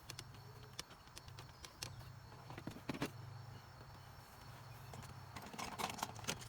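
Scattered light clicks and taps of hands working the dashboard parts and wiring, with a sharper knock about three seconds in and a small cluster near the end, over a faint steady low hum.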